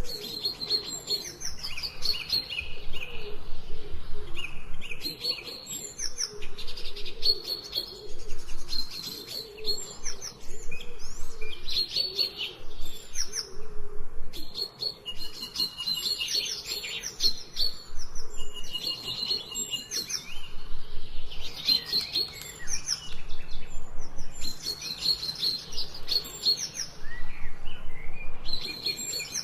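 Forest songbirds chirping and singing in quick, repeated phrases, each cluster a second or two long with short pauses between.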